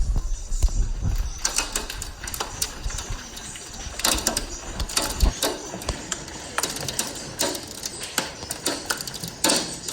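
Hailstones striking hard surfaces in a dense, irregular clatter of clicks and taps, with a low rumble in the first second and a half.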